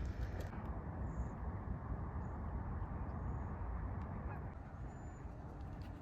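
Outdoor ambience: a steady low rushing noise with a few faint, short high bird chirps scattered through it.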